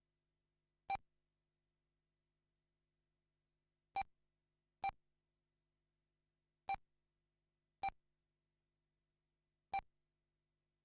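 RC race lap-timing system beeping as cars cross the timing loop: six short, identical beeps at uneven intervals, with silence between them.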